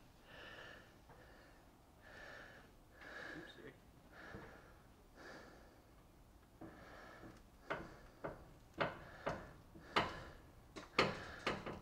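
A bus being let down on a jack so its tyre settles onto plywood over foam board. There are faint, short hissy bursts about once a second, then, in the second half, a run of sharper clicks and creaks as the weight comes down.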